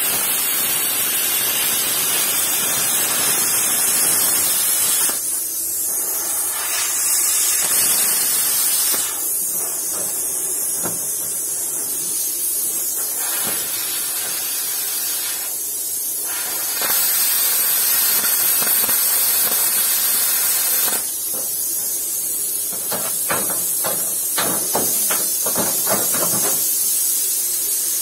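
Plasma cutter cutting sheet metal: a loud, steady hiss of arc and air that drops back several times between cuts. A run of sharp clicks and knocks comes near the end.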